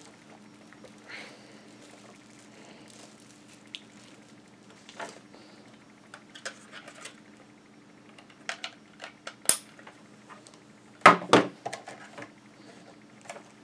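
A long flat Ethernet cable being uncoiled and handled, with scattered light clicks and rustles. A louder pair of clicks about eleven seconds in comes as its plug is pushed into a router's Ethernet port. A faint steady hum runs underneath.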